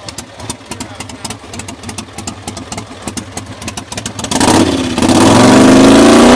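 Racing riding lawnmower's engine idling with a fast, uneven ticking, then revved hard about four seconds in, jumping to very loud with its pitch rising and falling.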